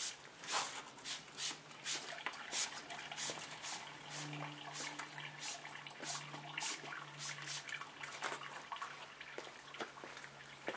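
Trigger spray bottle of bug and tar remover spritzing onto a car's front end: quick repeated hissy sprays, about two or three a second, thinning out near the end.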